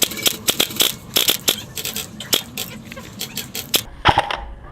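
Airsoft guns firing: an irregular string of sharp cracking shots, several a second, ending with one louder crack near the end.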